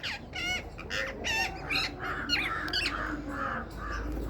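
Pet parrot giving a quick series of short chirps and squawks, each bending up and down in pitch, about ten in four seconds.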